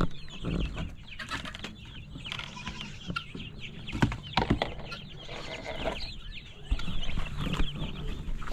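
Many baby chicks peeping rapidly and continuously, the peeps overlapping, with a few short knocks.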